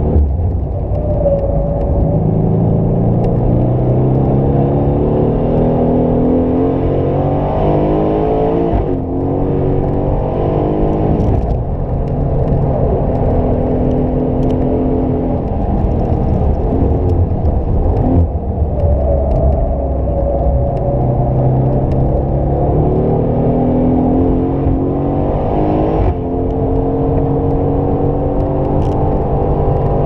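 2018 Aston Martin Vantage's twin-turbo V8, heard from inside the cabin, pulling hard on track with the revs climbing through the gears. There are quick upshifts about nine and eleven seconds in, the revs drop off around eighteen seconds, then climb again to another shift near the end.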